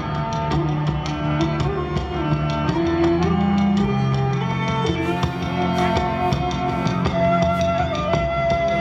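Instrumental music with drums, with held notes over a beat.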